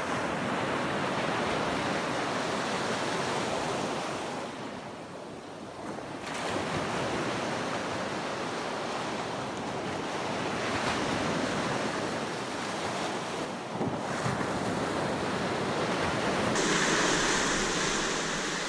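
Ocean surf breaking and washing up a sandy beach, a steady rush that eases for a moment about five seconds in and then builds again, with wind on the microphone. Near the end it turns brighter and hissier.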